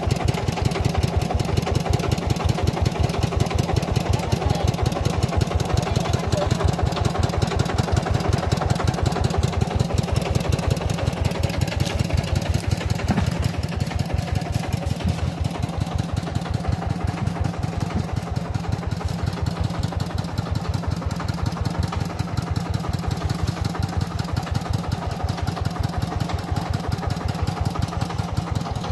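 Engine of a truck-mounted mobile rice mill running steadily with a fast, even chugging beat, driving the milling machine. It grows a little quieter about halfway through.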